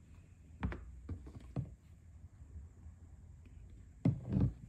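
A few light clicks and knocks from a plastic bottle being handled and uncapped on a wooden workbench, then a short pour of oil into a small plastic cap, with louder handling noise near the end.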